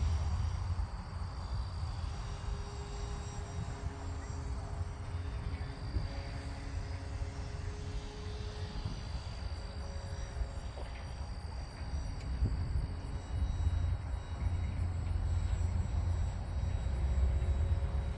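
Electric motor and propeller of a large RC plane in flight overhead, a faint thin whine that shifts a little in pitch, over steady low wind rumble on the microphone.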